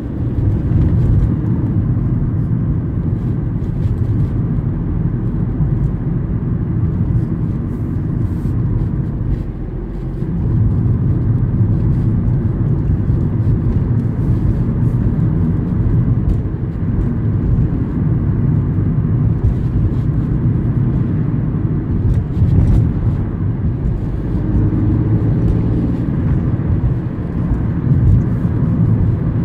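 Cabin noise of a Volkswagen car driving along town streets: a steady engine and tyre rumble that dips briefly about ten seconds in.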